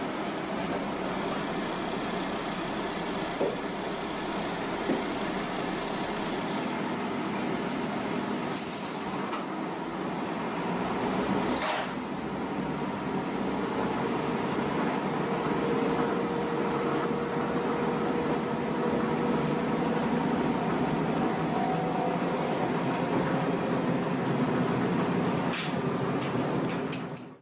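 Cabin noise of a JR Shikoku KiHa 32 diesel railcar under way: steady running of the engine and wheels on the rails, getting louder about twelve seconds in. A short hiss of air a little before that, with a few light clicks.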